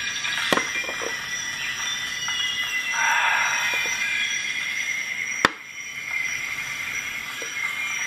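Metal clicks as a T-shank jigsaw blade is pushed into the blade holder of a Leatherman Surge multi-tool: a light click about half a second in, then one sharp, loud click about five and a half seconds in as the blade seats in the clamp. Under it runs a steady hiss with faint high-pitched tones.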